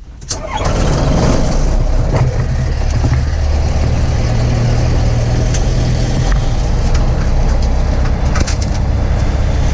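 Aeroprakt A-22 light aircraft's engine starting, catching about half a second in, then running steadily with its propeller turning.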